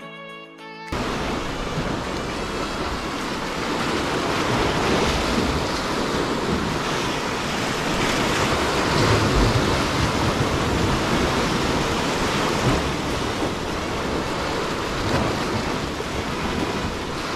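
Sea surf washing and sloshing among the concrete tetrapods of a breakwater, a steady rush of water with wind on the microphone. It starts suddenly about a second in.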